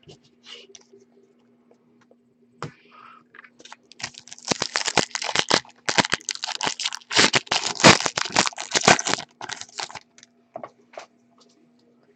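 Foil wrapper of a 2015 Certified football card pack being torn open and crinkled by hand: a dense run of crackling from about four seconds in to about ten seconds, after a few small clicks.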